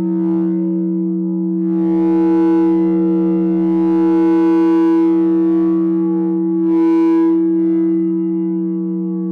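No-input mixer feedback drone from a two-channel mixer run through an effect pedal: two steady low tones with a ladder of overtones, held throughout. A hissy, distorted swell rises over it about two seconds in and fades by five seconds, and a shorter one flares around seven seconds.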